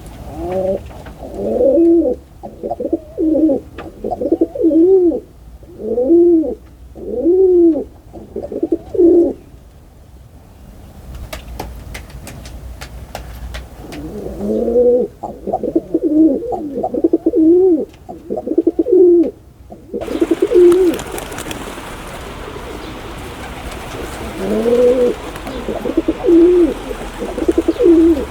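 Pigeon cooing: runs of repeated low coos, each rising and falling in pitch, in three bouts with short pauses between. About twenty seconds in, a steady hiss comes up behind the calls.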